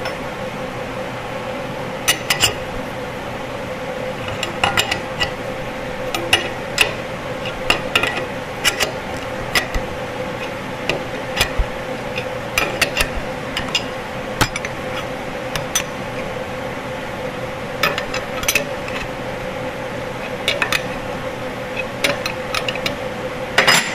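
Short metal clicks and clinks in small irregular groups every second or two as the screw of a blind pilot-bushing puller is turned, drawing the old pilot bushing out of the crankshaft flange. A steady hum runs underneath.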